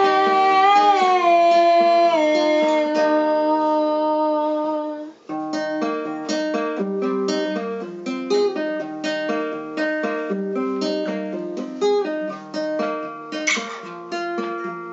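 Folk song played live on plucked strings. For the first few seconds a held note bends and then steps down over the chords. About five seconds in the music drops out briefly, then resumes as a steady run of plucked notes.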